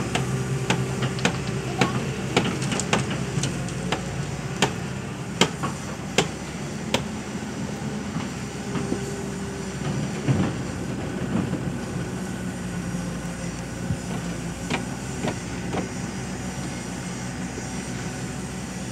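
Hyundai crawler excavator's diesel engine running steadily while it dumps soil into a truck and swings back to dig, with repeated sharp clanks and knocks, most of them in the first seven seconds.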